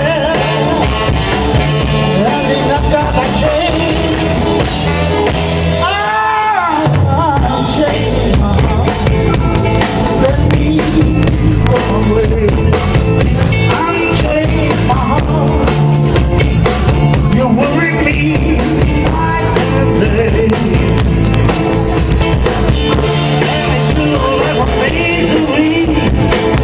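A live rock band plays: electric guitars, keyboard and a drum kit, with a female singer. About six seconds in, the low end drops out briefly under a single bending note, then the full band and drums carry on.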